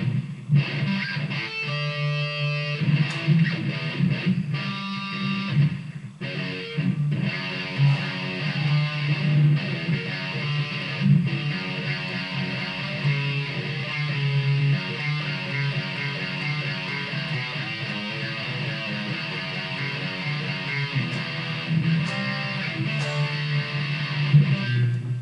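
Electric guitar played through a multi-effects unit into an amplifier with distortion, a stream of fast notes and a few held ones, stopping suddenly at the end.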